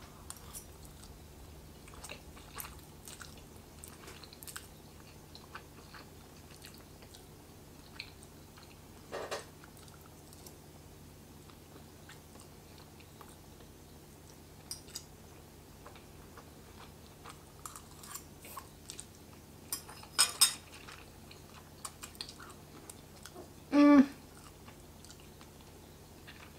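A person eating spicy ramen noodles: quiet chewing and slurping of noodles, with scattered faint clicks. A sharper burst comes about twenty seconds in, and the loudest moment, a short voiced sound from the eater, comes a few seconds later.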